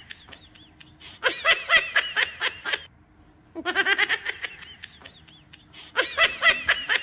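High-pitched laughter in three bursts, each a quick string of short giggling notes, with short pauses between them.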